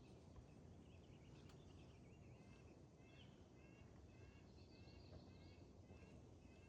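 Faint wild birdsong: a bird repeating short high chirps about twice a second from a couple of seconds in, over steady low background noise.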